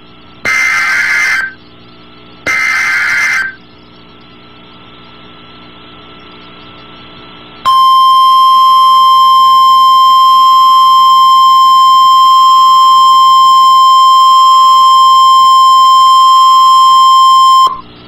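NOAA Weather Radio emergency alert: two short, screechy bursts of the digital SAME header code about a second apart, then a few seconds of radio hiss, then the steady 1050 Hz warning alarm tone for about ten seconds, cutting off sharply. Together they announce a new severe thunderstorm warning.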